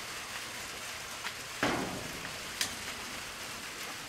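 Steady rain falling, an even hiss broken by a few sharp taps of drops, the loudest about a second and a half in.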